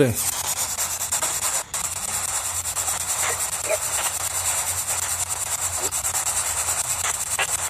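Steady, loud static hiss, with a brief dropout about a second and a half in and a few faint, short chirps later on.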